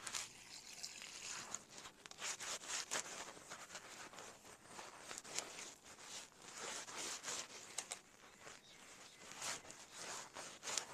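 Hands mixing and kneading flour dough in a clay bowl: faint, irregular rustling and scraping strokes.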